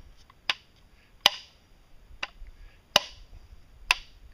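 Five sharp knocks, about one a second, as a homemade PVC pipe roller bearing is struck to drive out its stuck inner ring after its rivets have been drilled out.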